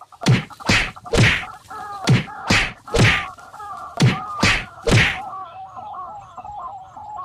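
Nine heavy whacks in three quick groups of three, like blows struck with a tool. A wavering high call carries on after them.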